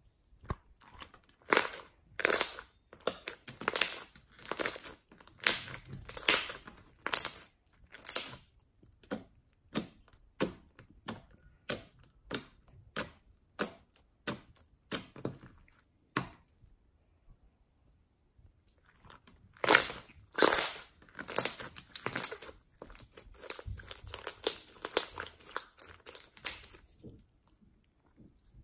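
Hands squeezing, stretching and poking a fluffy slime, making a run of sharp, wet crackles and pops. There is a pause of about two seconds midway, then more.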